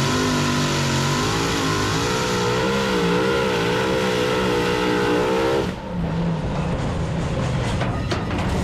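Pulling tractor's engine running at full throttle, its pitch wavering up and down, then dropping away abruptly about six seconds in to a lower, rougher running sound.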